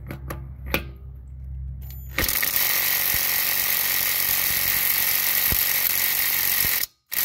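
Light metal clicks as the socket goes onto the lug nut. About two seconds in, a brushed Ryobi P235 impact driver starts hammering in reverse on the car's lug nut, which is torqued to about 100 foot-pounds. It runs for nearly five seconds, stops briefly, then hammers again near the end.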